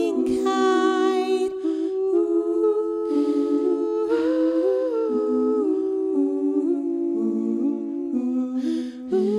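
Several voices humming a cappella in harmony, holding chords that move in slow steps.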